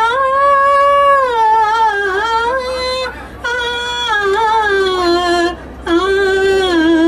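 A woman singing unaccompanied into a coach's handheld microphone: long held notes with a wavering vibrato, pausing briefly twice.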